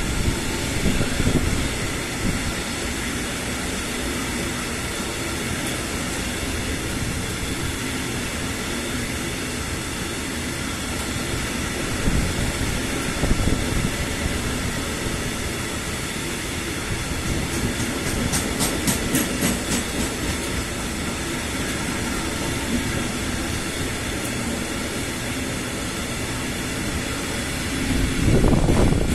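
A freight train of Eamnos-type open high-sided wagons rolling past at a steady pace, with a continuous rumble of wheels on rail. A short run of rapid, faint high clicks comes about two-thirds of the way through, and the low rumble swells near the end.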